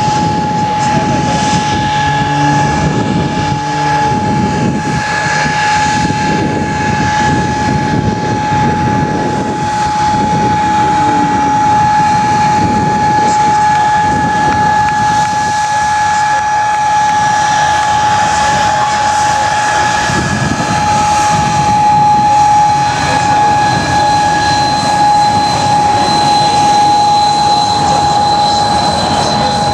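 Aircraft engine running steadily in flight, a constant high whine over a broad rumble, the whine holding one pitch throughout.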